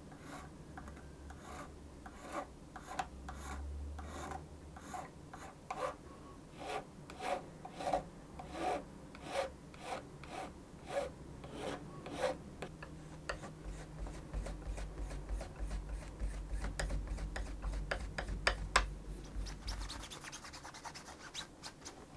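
Small metal file stroking across the soldered silver wire winding on a bow stick, about two strokes a second. Later it gives way to finer, steadier rubbing with a low hum underneath, as the winding is cleaned with a cloth.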